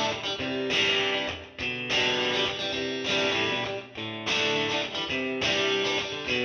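Background music of strummed guitar chords, changing about once a second.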